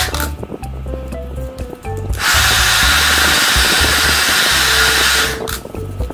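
A loud, steady, hissing tool noise in two stretches, the first ending just after the start and the second running about three seconds from about two seconds in, over background music.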